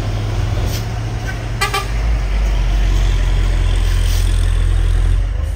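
Heavy truck diesel engine running under load with a deep steady drone, its note shifting about two seconds in. A short horn toot sounds over it a little under two seconds in.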